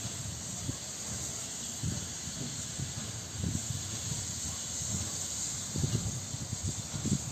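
Ol49 steam locomotive starting its train slowly away: a steady hiss of steam, with irregular low rumbling puffs every second or two.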